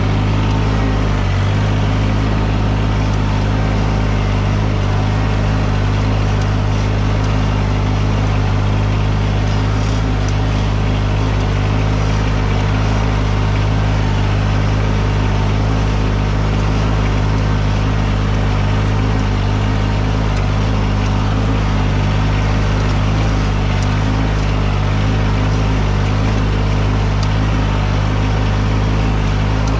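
An engine running steadily at an even speed, a constant low hum and rumble with no change in pitch or load.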